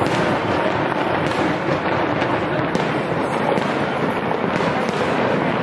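Fireworks display: a dense, continuous barrage of rapid crackling bursts, loud and unbroken.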